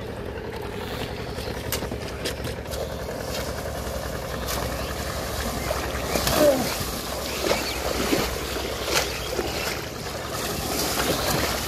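Water splashing as people wade and run through knee-deep river water, with several louder splashes in the middle and toward the end, over a steady low rumble.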